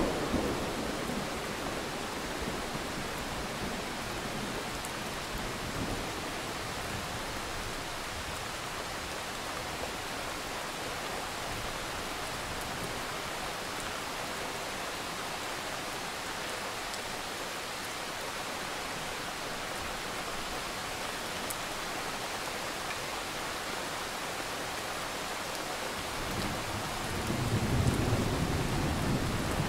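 Steady rain hiss, with a low rumble of thunder swelling up near the end.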